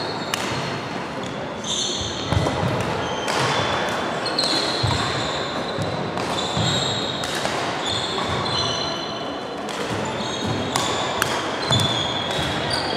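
Badminton play in an echoing sports hall: shoes squeaking in short chirps on the wooden court floor, with sharp racket strikes on a shuttlecock scattered through, and faint voices.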